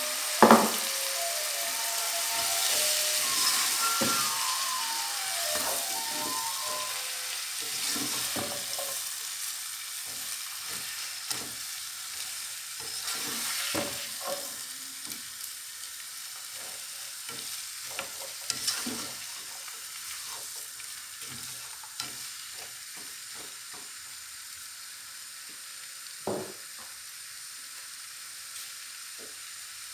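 Shredded white radish sizzling in hot oil and spices in a pot while being stirred, with frequent scrapes and knocks of the spoon against the pot. There is a sharp knock about half a second in. The sizzle is loudest at first and dies down as the radish cooks.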